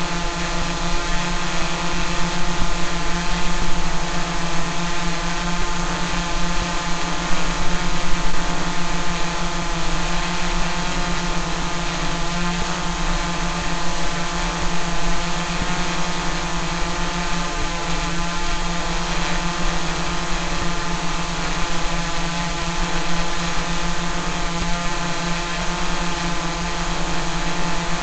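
Multirotor drone's propellers and motors humming as a steady buzz at an even pitch.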